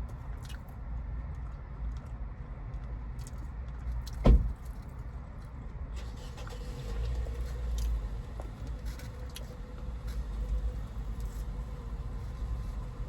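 Car engine idling, heard from inside the cabin as a steady low rumble. Light clicks and handling noises run over it, with one sharp thump about four seconds in.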